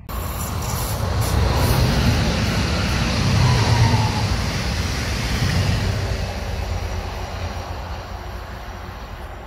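An SBB electric passenger train passes close by, a rush of wheel and rail noise over a deep rumble. It starts abruptly, is loudest a few seconds in, and fades away over the last few seconds.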